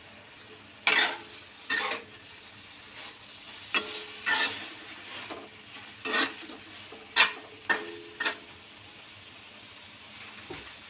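A spatula scrapes and knocks against a metal wok while food is stirred, about eight strokes, several of them leaving a short ringing tone from the pan. A faint steady hiss runs underneath.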